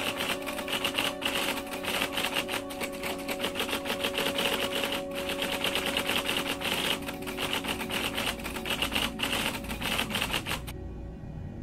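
Rapid, continuous typewriter keystroke clicks that stop abruptly about ten and a half seconds in, over a steady low background drone. A quieter low rumble is left after the typing ends.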